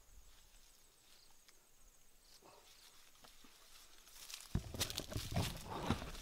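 Leaves and branches of a tree rustling as someone pushes through the foliage: faint scrapes at first, then from about two-thirds of the way in a louder, irregular run of rustles and snaps.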